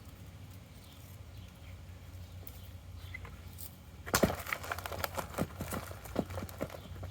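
Potatoes and damp soil being dug and tipped out of a potato-growing bucket: faint rustling at first, then from about four seconds in a run of irregular knocks and clatters as the soil and tubers tumble out.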